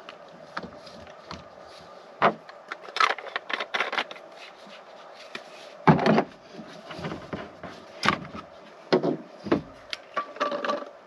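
Irregular clicks, knocks and short scrapes of a portable electric espresso maker, an Outin Nano, being handled and put together, with the loudest knock about halfway through. A faint steady hum runs underneath.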